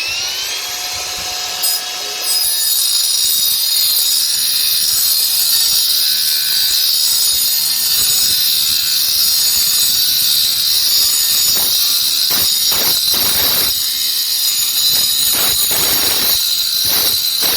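Brushless angle grinder with a 4-inch Lenox Metalmax cutting disc cutting through a steel padlock: a loud, steady, high-pitched screech that grows louder about two seconds in as the disc bites into the metal.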